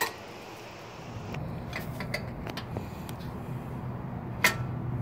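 Scattered metallic clicks and clinks of a ratchet and socket working on the lower bolt of a Jeep Wrangler JK's front shock absorber while the bolt is being removed, with one sharper knock about four and a half seconds in. A steady low hum runs underneath from about a second in.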